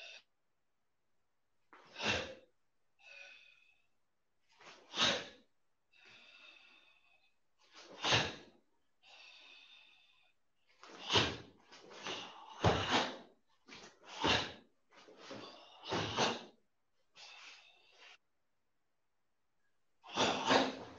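A karateka performing a kata alone: a run of short, sharp, forceful exhalations timed with the techniques, with the snap of the gi and bare feet on foam mats, plus a few longer hissing breaths. They come about once a second, with a pause just after the start and another near the end.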